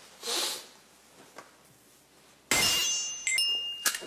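Edited-in TV sound effect: a sudden bright chime with several ringing tones about two and a half seconds in, ending in a sharp click. It marks the on-screen glance counter ticking up. A brief soft hiss comes near the start.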